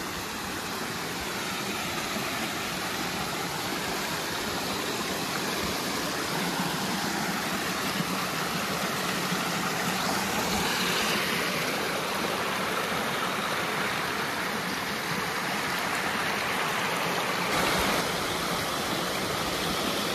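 Steady rushing of a waterfall, an even hiss of falling water with no pitch to it, shifting slightly in tone near the end.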